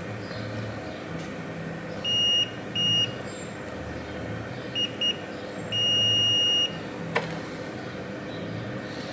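Digital multimeter's continuity beeper giving several short beeps and one longer beep of about a second, a steady high tone, as the probes touch points on a laptop logic board to check for short circuits. A sharp click comes about 7 seconds in.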